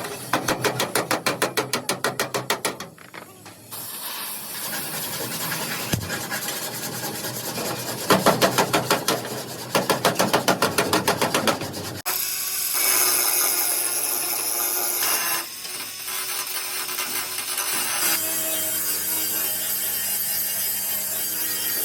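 Hand sanding or filing strokes on the cabin bodywork, rubbed back and forth about five or six times a second in two runs. Near the middle a steadier workshop noise takes over.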